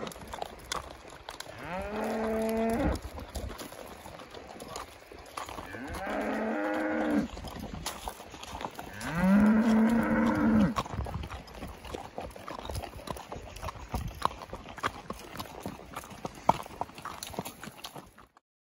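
Cattle mooing three times, each call long and drawn out, the third the loudest, over the uneven crunch of a horse's hooves walking on a gravel road. The sound fades out near the end.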